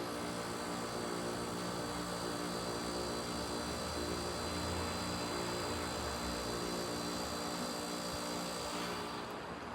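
Outdoor unit of a 2008 Bryant Preferred Series heat pump running in its defrost cycle: a steady compressor hum with a hiss over it. The hiss falls away about nine seconds in.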